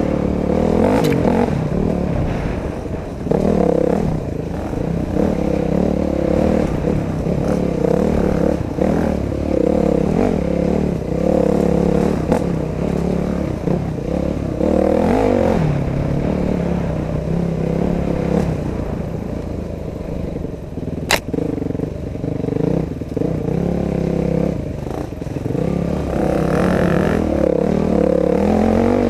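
Dirt bike engine running and revving up and down with the throttle, its pitch rising and falling over the rough trail, with clatter from the bike and a single sharp snap about two-thirds of the way through.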